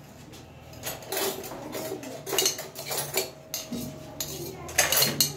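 Irregular metallic knocks and clinks of a steel cup pressing and striking against a steel bowl while mashing boiled potatoes, with a cluster of sharper clinks near the end.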